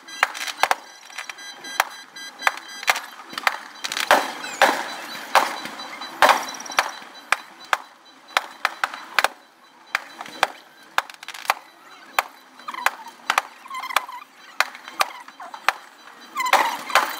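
Aerial fireworks bursting: an irregular run of sharp bangs and crackles, several a second.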